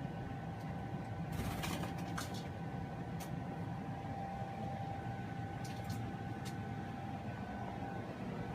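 A steady low mechanical hum with a faint high whine, broken by a few scattered clicks.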